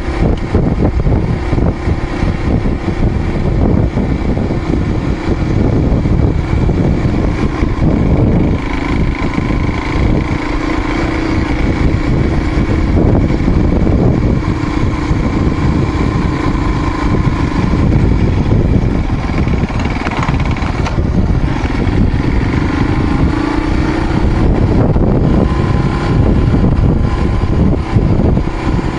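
Motorcycle engine running steadily while riding a dirt trail, its tone wavering slightly in pitch with the throttle, over heavy low rumble.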